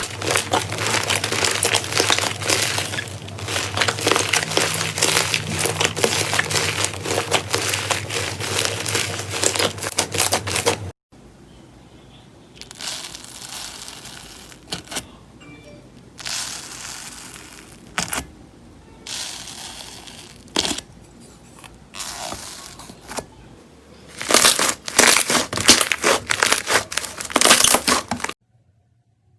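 Slime being squeezed and pressed by hand, making a dense crackling and crinkling that cuts off suddenly about 11 seconds in. Quieter squishes follow every second or two, then loud crackling again that stops abruptly near the end.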